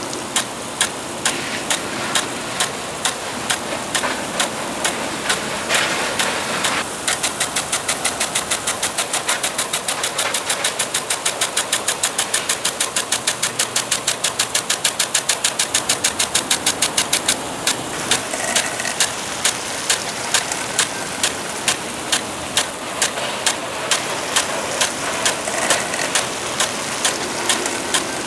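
Impact sprinkler ticking over the hiss of its water spray. About two ticks a second, quickening to a fast run of ticks about a quarter of the way in, then slowing to the earlier pace a little past halfway.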